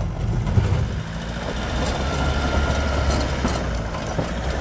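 Off-road vehicle's engine running steadily at low revs, a deep continuous hum with rumbling noise over it.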